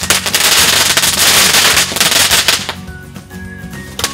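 A small ground firework going off in dense, rapid crackling pops while it throws sparks. The crackling thins out about two-thirds of the way through, then flares up again right at the end, with background music under it.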